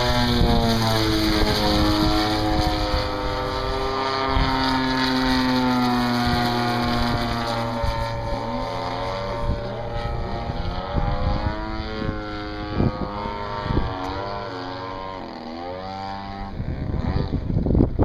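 Motor and propeller whine of radio-control aerobatic model planes, a Yak 54 and an Extra, flying overhead. The pitch rises and falls as the throttle changes and the planes pass. Wind buffets the microphone near the end.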